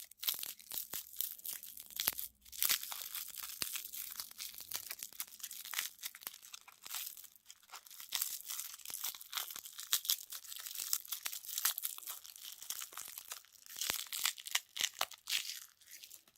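Close-up crinkling and tearing of a plastic wrapper: a dense, uneven run of small crackles that stops near the end.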